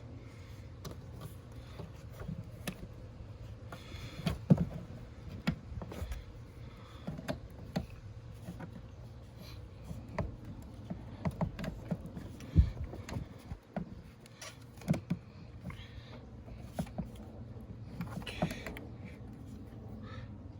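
Irregular clicks, knocks and clunks of hand tools and car parts being handled and refitted during reassembly after an oil change, over a steady low hum. The loudest knock comes a little past halfway.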